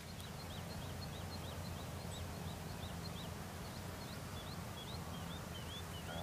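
A bird calling a rapid run of short, high chirps, about three or four a second; about two-thirds of the way through, the notes turn from falling to rising. A low, steady outdoor rumble runs beneath.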